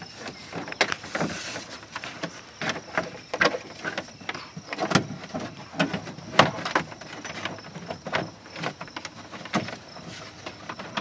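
Plastic side panel and push clips of a UTV being pried loose and handled by hand: irregular clicks, knocks and rattles.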